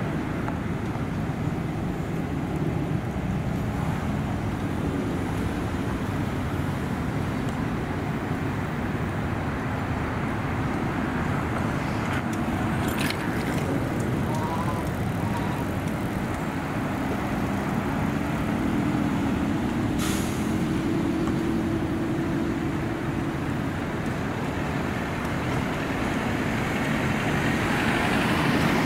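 Steady traffic and vehicle engine noise, with engine tones that shift about, and a few faint clicks midway.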